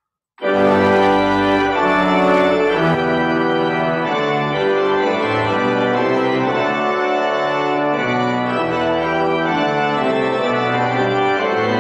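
Organ playing full, sustained chords that change every second or so. It starts suddenly about half a second in, as the closing voluntary after the dismissal at the end of the service.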